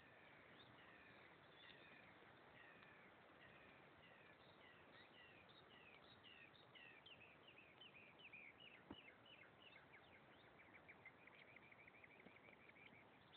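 Near silence with faint bird song: a run of short descending chirps that come faster and faster, ending in a quick trill near the end.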